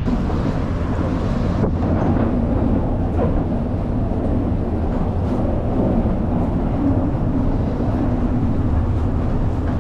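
Steady low rumble of a docked ferry's engines running, with a faint hum over it and a single sharp click about two seconds in.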